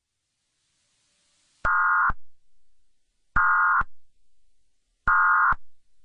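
Three short bursts of Emergency Alert System digital data tones, about 1.7 s apart, each a harsh buzzy warble lasting about half a second: the end-of-message code that closes an EAS alert.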